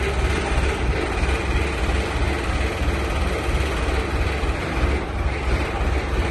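Asphalt paver's engine running with a steady low rumble.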